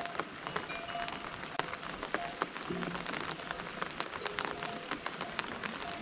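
Steady rain falling, with many separate drop hits close to the microphone over a constant hiss.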